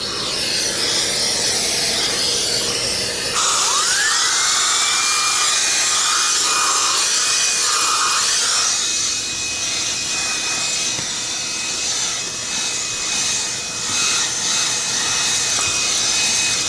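Aspiron 1200 W bagless canister vacuum cleaner running with its floor head on car carpet, a steady rush of air. About three and a half seconds in it grows louder, and a whine rises and then holds at one high pitch.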